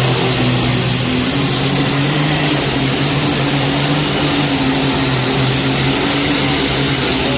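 Alcohol-burning pulling tractor engine running loud and steady at full throttle, with a thin high whine rising over the first couple of seconds.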